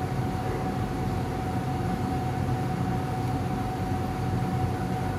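Steady background hum and hiss with a thin high whine held at one pitch throughout, like a motor or fan running; no distinct events.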